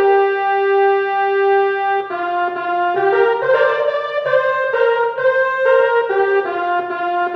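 Harmonium playing an instrumental melody: one note held for about two seconds, then a run of shorter stepped notes.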